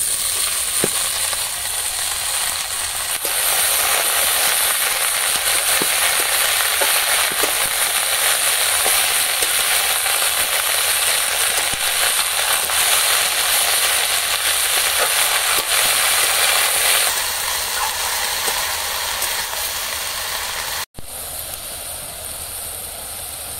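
Freshly added cut vegetables (spring-onion stalks, thin aubergine and beans) sizzling loudly in hot mustard oil in an aluminium kadai, with light clicks and scrapes as a metal spatula stirs them. The sizzle grows a few seconds in and eases later as the vegetables soften.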